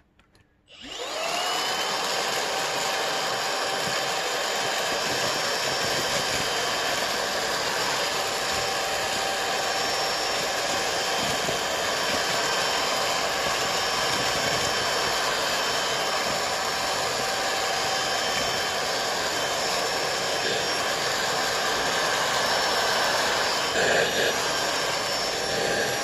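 Dibea D008Pro cordless stick vacuum's brushless motor switching on less than a second in, spinning up within about a second to a steady whine in normal suction mode and picking up bits of paper from a rug. A brief rattle comes near the end.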